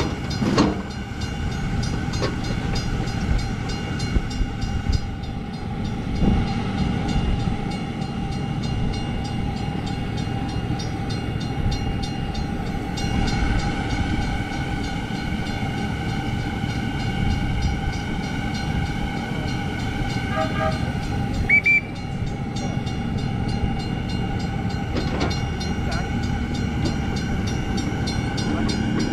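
A 7½-inch-gauge miniature riding train running along its track, a steady rolling rumble with a continuous whine over it. A few short high chirps come about twenty seconds in.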